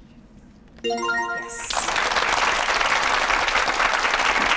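A brief electronic correct-answer jingle about a second in, then studio audience applause that carries on steadily.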